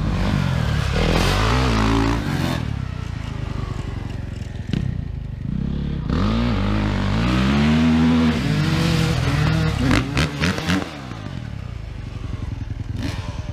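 Motocross dirt-bike engines on the track, revving up and falling back again and again as the riders accelerate and shift. A few sharp clicks come about ten seconds in.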